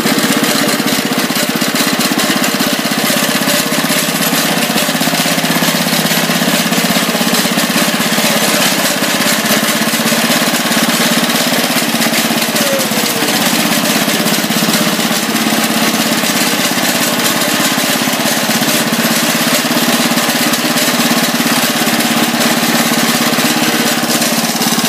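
Sears Super 18 Hydro-Trac garden tractor engine running steadily, with a loud mechanical clatter over it that the owner puts down to the clutch.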